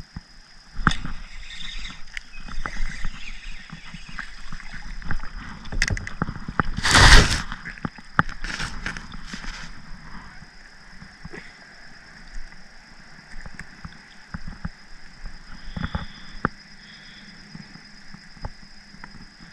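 A small bluegill splashing at the water's surface as it is landed from a kayak, loudest in one burst about seven seconds in. Scattered clicks and knocks come from the rod, the line and the fish being handled on the hull.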